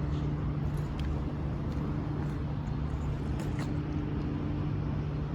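Steady low hum of an idling vehicle engine with outdoor traffic noise around it, a few faint ticks on top.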